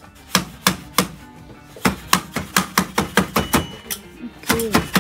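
Iron beating comb knocking down freshly tied knots and weft on a Kashmiri hand-knotted carpet loom: a quick series of sharp knocks, about a dozen, in short irregular runs.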